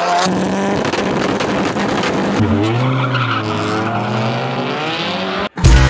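Race car engine revving with tyres squealing in a skid, its pitch wavering up and down from about two and a half seconds in. It cuts off suddenly near the end, and a loud electronic music beat comes in.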